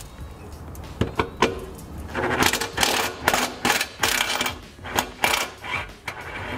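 Cordless impact wrench with a 13 mm socket running in several short bursts, loosening the bolts of a car's exhaust support plate, with a few sharp metal clicks before the first burst.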